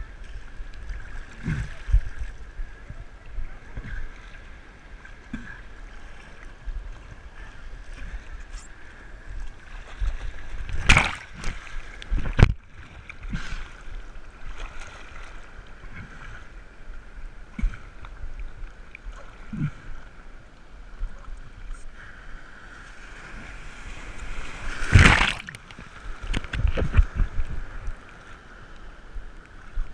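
Sea water sloshing and surf washing around an action camera held at water level, with several sudden loud splashes, the loudest about halfway through and again near the end.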